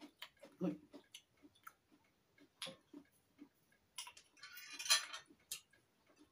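Quiet, irregular clicks and taps of cutlery against china plates and bowls during a meal, with a louder knock a little under a second in and a brief louder rustle about five seconds in.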